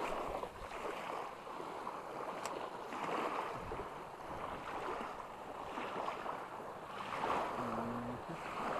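Small choppy waves lapping and washing against a rocky shoreline, the wash swelling every second or two.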